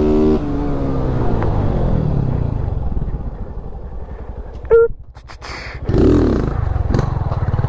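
Honda CG Titan 160 single-cylinder four-stroke engine running through an open, gutted tin ("de lata") exhaust with the air filter removed, its revs falling off the throttle while riding. About five seconds in come a string of sharp exhaust pops and cracks, then a quick rise and fall in revs and another pop.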